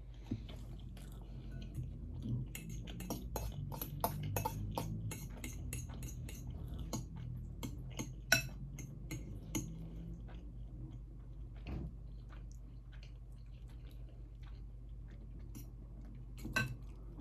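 Cutlery clinking and scraping against a dish, dense for the first ten seconds and then sparser, with soft chewing. This is a meal of spaghetti bolognese being eaten.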